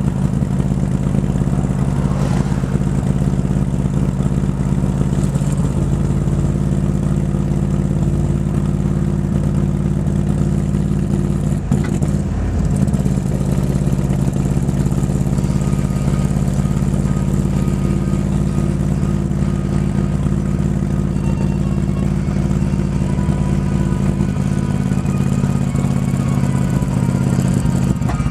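Shelby AC Cobra replica's 427 V8 running steadily at idle while misfiring, dropping cylinders so that it sounds like a tractor; there is a brief change in the note about twelve seconds in.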